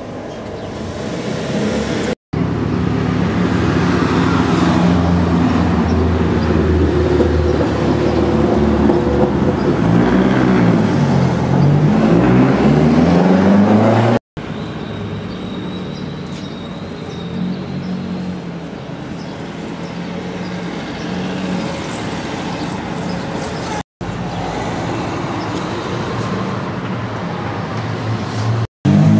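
Street traffic: a car engine runs close by, its pitch dipping and rising as it pulls away, with other vehicles passing. The sound cuts off abruptly for an instant three times and comes back at a different level.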